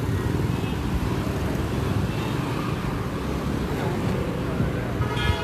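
Steady road traffic rumble, with a short vehicle horn toot near the end.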